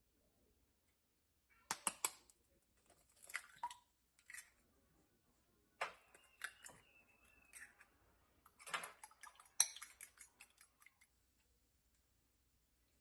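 Scattered clicks, knocks and light rustles of small objects being handled, in a few separate clusters, with a thin high tone lasting about a second and a half in the middle.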